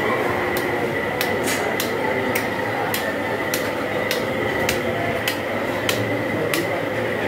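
A butcher's cleaver chopping into a hanging goat carcass: about a dozen sharp chops, roughly two a second, over a steady din of market noise with a faint constant whine.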